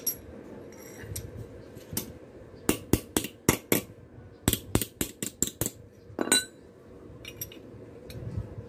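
Hammer striking a small metal piece on the anvil face of a bench vise: sharp metallic clinks in two quick runs of about four or five blows a second, with a single blow after them.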